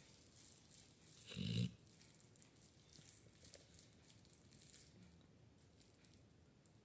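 Sleeping puppy snoring: one loud, short snore about a second and a half in, then only faint breathing sounds.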